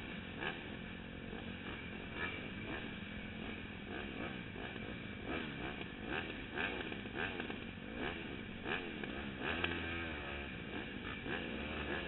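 Dirt bike engine running while the bike stands still, its pitch rising and falling again and again as the throttle is blipped, with scattered clicks.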